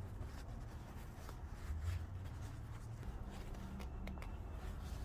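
Soft scratching and rubbing of bag fabric being handled and stitched near the zipper, with a few faint clicks.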